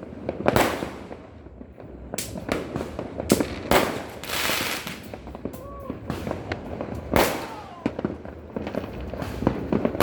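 Fireworks and firecrackers going off across a town: a dense, irregular series of sharp bangs and pops, echoing between them, with the biggest blasts about half a second, three seconds and seven seconds in. A short whistle of a rocket sounds about six seconds in.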